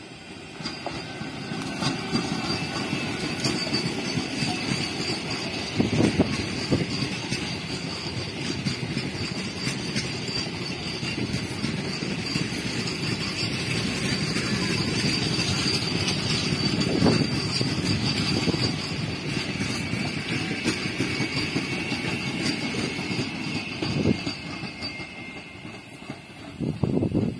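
MEMU electric passenger train running past on the rails: a steady rumble of wheels on track with a few louder knocks, and a steady high whine above it. It builds as the train arrives and fades as the rear cab draws away near the end.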